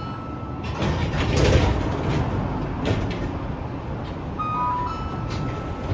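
Inside a Nagasaki Electric Tramway 3000-series tram standing at a stop with its doors open: a steady background of the car's equipment and the street. About four and a half seconds in comes a short two-note electronic beep, falling in pitch, followed by a held high tone.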